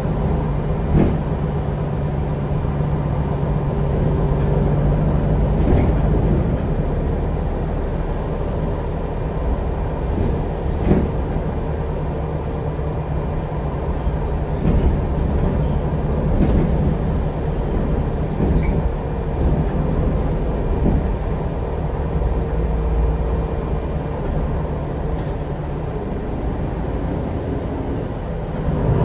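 Cabin noise of a MAN Lion's City G articulated diesel bus under way: a steady low engine drone over road and tyre rumble, with a few short knocks and rattles from the body.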